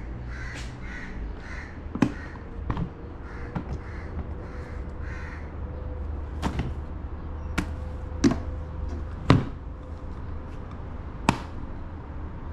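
A crow cawing repeatedly, about two calls a second, for the first five seconds. Over it come sharp plastic knocks and clicks as a motorcycle's GIVI plastic top box is opened, loaded and snapped shut.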